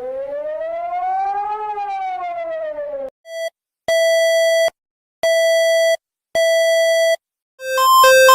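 Emergency alert alarm tones: a siren wailing, its pitch rising and then falling, cuts off about three seconds in. A short beep and three steady beeps, each under a second, follow, and near the end a fast alternating high-low two-tone alarm begins.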